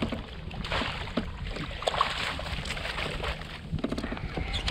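Water splashing and sloshing at a kayak's side as a hooked tautog is brought alongside and scooped into a landing net, with scattered small knocks and clicks.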